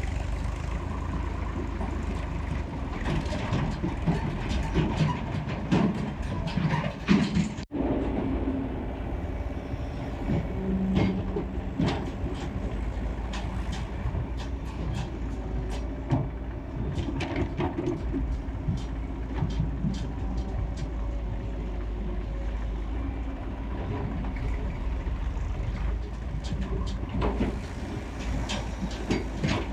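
Excavator's diesel engine running with a steady low rumble, overlaid by frequent metallic clanks and knocks from the working digging gear. The sound cuts out for an instant about eight seconds in.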